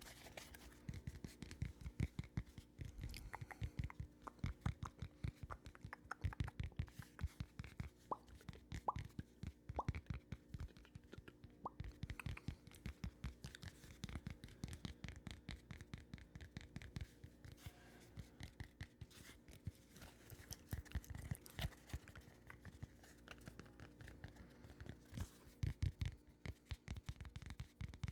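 Close-miked ASMR trigger sounds: a dense, irregular run of quick clicks and soft taps right against the microphone.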